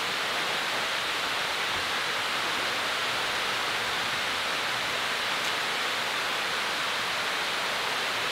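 Steady, even rush of flowing river water, unchanging throughout.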